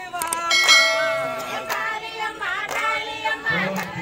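A group of women singing a folk song while clapping their hands as they dance in a circle, with one long held note near the start and sharp claps scattered through.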